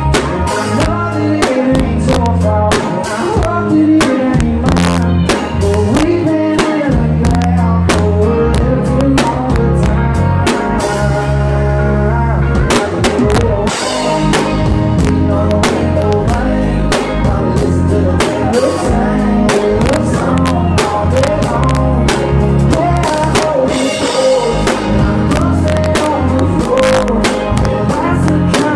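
Live country band: a male singer singing over strummed acoustic guitar, with bass and a drum kit keeping a steady beat.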